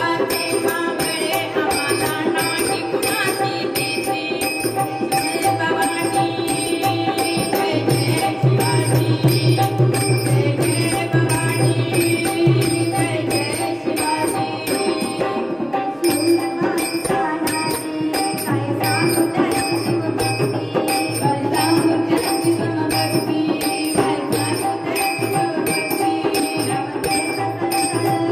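Powada music, a Marathi ballad, with a steady beat of drum and jingling metal percussion.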